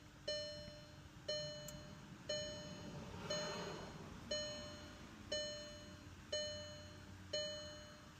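An electronic chime dinging steadily about once a second, each ding struck sharply and fading: the Passat's warning chime sounding with the ignition on.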